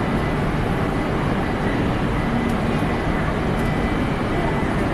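Steady rushing hum of a station platform beside a stationary E6-series Shinkansen, with a thin, steady high whine.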